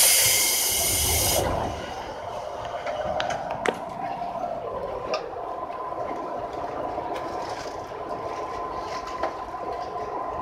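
Loud hiss of compressed air from a JR 211-series electric train's pneumatic system, cutting off abruptly about a second and a half in. After it the standing train gives a steady low hum with a faint held tone and a single sharp click.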